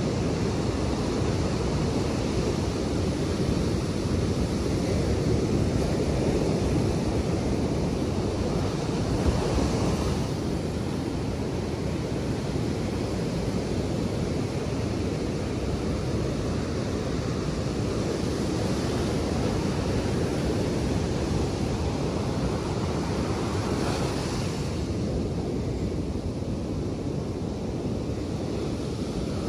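Atlantic surf breaking and washing up a sandy beach, with wind buffeting the microphone as a steady low rumble. The wash of the waves swells about a third of the way in and again near the end.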